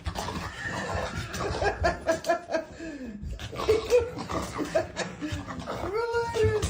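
Laughter in a string of short pitched bursts, with a rising-and-falling call near the end.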